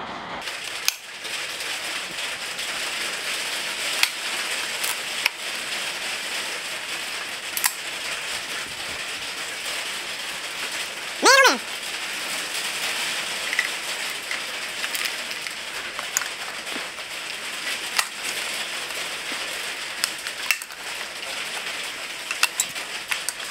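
Scattered clicks and knocks of hand tools, pliers working the spring clamps and hoses of an engine's coolant crossover pipes, over a steady hiss. A short voice sound comes about halfway through.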